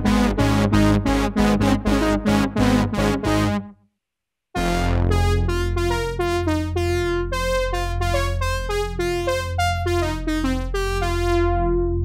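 Moog Muse eight-voice analog polyphonic synthesizer playing its "LA Session Brass" factory preset: fast repeated brass chord stabs that stop short, about half a second of silence, then a melodic line played over held low notes.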